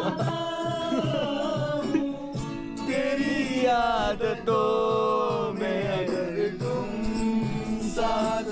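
Music: a song with a singing voice over instrumental backing.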